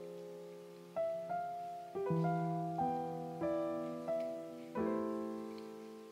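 Soft background piano music: gentle notes and chords struck about once or twice a second, each left to ring and fade.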